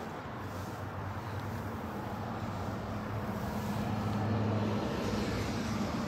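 Steady low hum of an idling vehicle engine with a little traffic noise, growing slightly louder about four seconds in.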